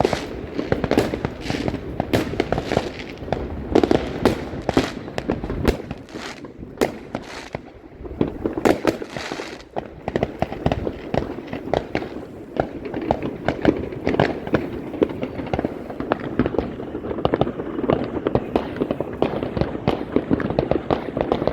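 Many fireworks and firecrackers going off at once: a dense, continuous crackle of sharp bangs and pops that thins out briefly in the middle, then picks up again.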